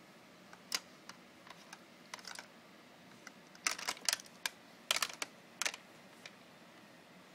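Hard plastic toy pieces on a Baby Einstein activity jumper clicking and clacking as a baby handles them: scattered sharp clicks, bunched together about four and five seconds in.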